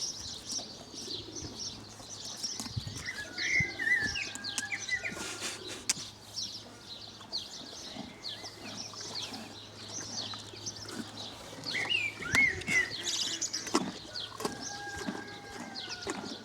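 Many small birds chirping and twittering throughout, with a few longer whistled calls and now and then a knock or thud.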